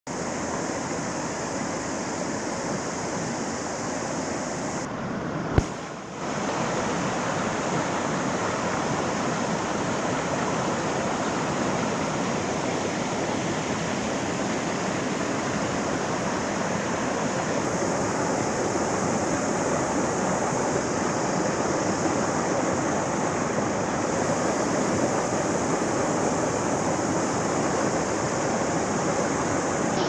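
Shallow mountain stream rushing steadily over rocks and small rapids. About five and a half seconds in there is one sharp click and a brief dip in the sound.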